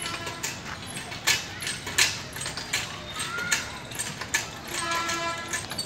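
Metal pivots of an outdoor gym swing-type exercise machine clicking and creaking in a steady rhythm, about once every three quarters of a second, as the foot swings are swung back and forth.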